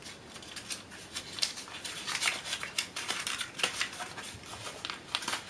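A small folded piece of paper being unfolded by hand, crackling and rustling in a run of short, crisp crinkles.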